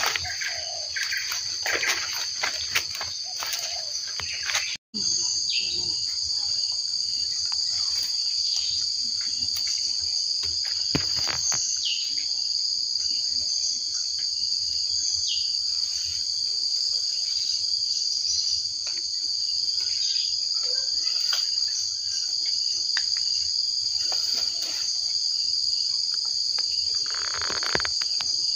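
A steady, high-pitched drone of insects in the forest, one unbroken chorus. Rustling and clicks of handling come over it in the first few seconds, and it drops out for an instant about five seconds in.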